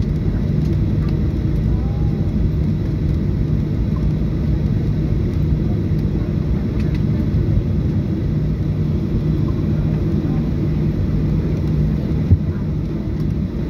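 Steady low cabin rumble of a Boeing 737-800 rolling slowly on the ground after landing, with an even hum and one short sharp knock about twelve seconds in.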